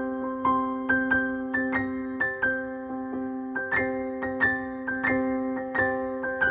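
Background music: soft keyboard notes struck about twice a second over a sustained chord.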